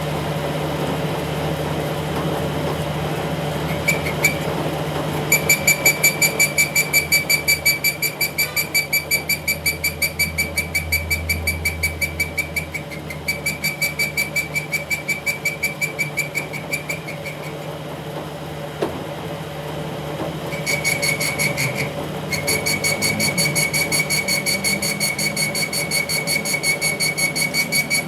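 Machine tool running with a steady hum, joined about five seconds in by a rapid, high-pitched chirping, about four or five chirps a second. The chirping stops briefly a little past the middle and then resumes.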